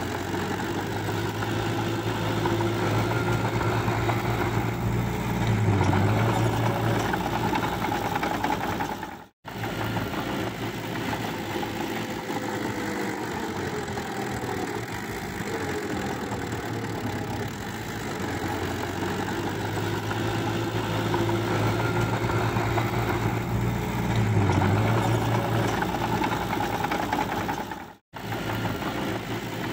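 Small crawler dozer's diesel engine running steadily, its pitch dipping briefly twice. The sound cuts out for an instant twice, about a third of the way in and near the end.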